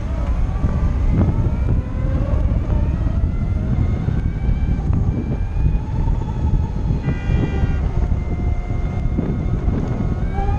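Harley-Davidson LiveWire electric motorcycle's motor whining, rising in pitch as the bike accelerates and then holding steady. Heavy wind rumble on the microphone runs under it.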